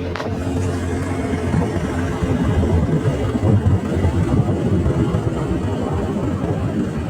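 Vehicle engine running with road rumble while driving.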